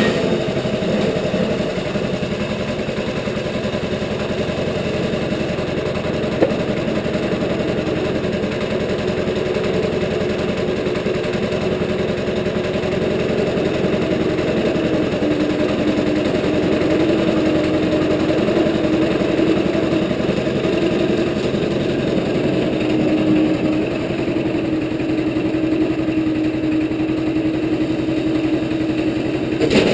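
Wood-Mizer LT15 portable bandsaw mill's engine running steadily, with a single sharp knock about six seconds in.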